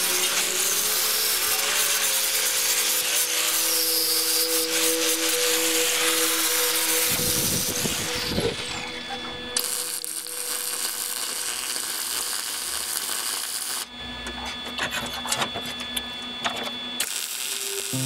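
Handheld angle grinder running, grinding a forged steel antler with a steady, slightly wavering whine. After about seven seconds it gives way to MIG welding crackle, heard in several short sections that cut in and out.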